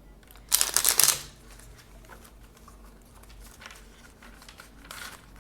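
Tarot cards being shuffled: a loud burst of rapid riffling about half a second in that lasts under a second, followed by quieter card handling and a brief shorter rustle near the end.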